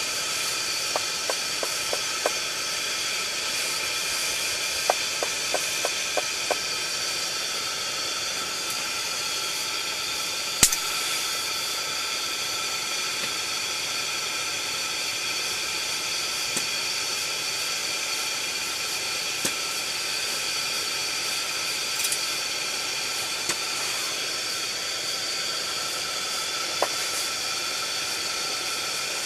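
Steady hiss of a pressure-burner heater burning. Two short runs of light clicks come in the first several seconds, and one sharp knock partway through.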